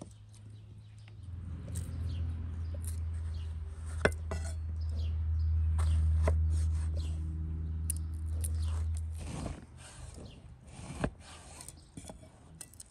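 A low steady drone comes in about a second in and dies away after about nine seconds. A few sharp knife taps sound against a wooden chopping board as an orange is sliced, with the clearest ones about four and eleven seconds in.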